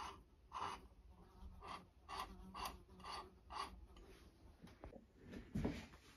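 Crankshaft of a Stuart 10V model steam engine turned by hand in its new phosphor bronze bearings: a faint dry rubbing scrape about twice a second. A light knock near the end.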